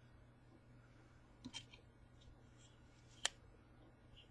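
Faint metal clicks from a Leatherman multi-tool as a folding implement is pried out, with one sharper click about three seconds in, over near silence.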